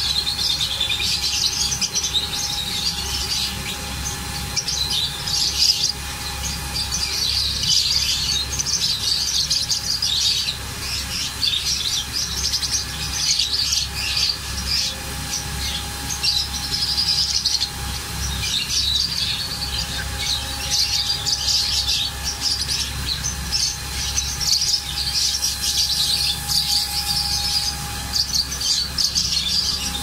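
A group of lovebirds chattering in a cage: constant, overlapping high chirps with no pause, over a faint steady hum.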